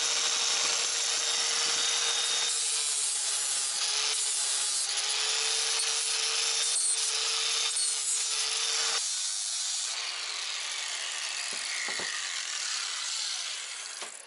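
Angle grinder with a flap disc grinding down rough welds and edges on a welded metal bracket, a steady grinding noise over a motor hum. About nine seconds in the hum stops, and the grinding noise fades over the last few seconds.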